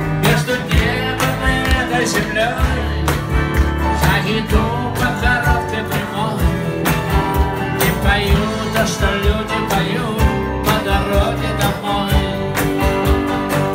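Live band playing a song loudly: strummed acoustic guitar and electric guitars over a drum kit beat.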